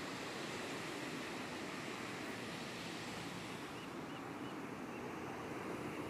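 Ocean surf: small waves breaking and washing up on a sandy beach, a steady rushing noise.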